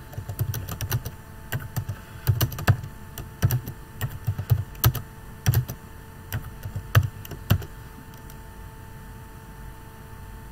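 Typing on a computer keyboard: irregular keystrokes for about seven and a half seconds, then the typing stops, leaving a faint steady hum.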